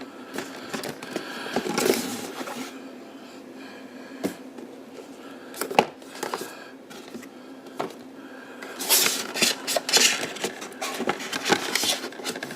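Boxes and packaging being handled and unpacked on a table: scattered knocks and clicks, one louder knock midway, and a stretch of rustling and scraping near the end, over a faint steady hum.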